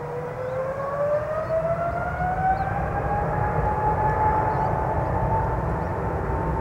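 Boeing 777-300's GE90 turbofan engines spooling up for takeoff: a whine that rises in pitch over about three seconds and then holds steady, over a deep rumble that grows louder.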